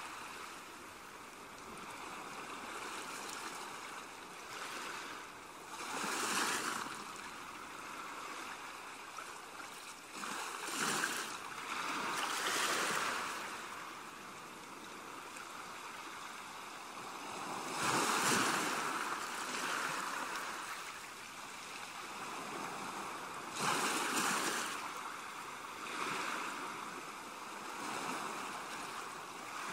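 Ocean waves washing in, a steady hiss of surf that swells about every six seconds, used as a background soundtrack.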